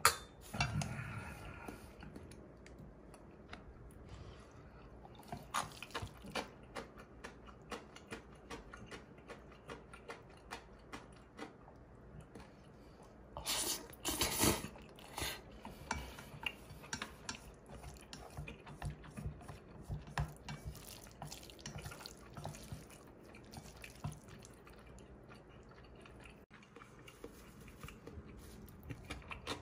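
Eating sounds at the table: a metal spoon clinking against a steel bowl of cold soup, and small wet clicks of chewing throughout. About halfway through, a louder stretch of soup being slurped from the spoon.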